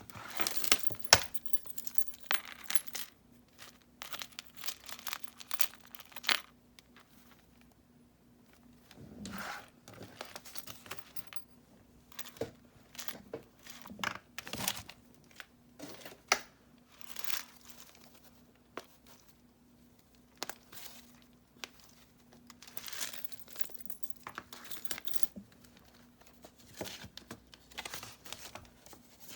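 Pages of a hand-bound paper junk journal being turned and handled, rustling and flapping in short bursts with pauses between them. Occasional sharp clicks come through, the loudest about a second in.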